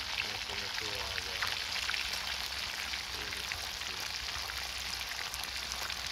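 Whole fish deep-frying in hot oil in a pan: a steady sizzle dotted with small crackles and pops.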